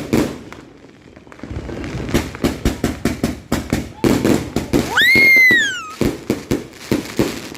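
Consumer fireworks going off in a rapid run of sharp pops and crackles. About five seconds in, a whistling firework shrieks for about a second, rising and then falling in pitch.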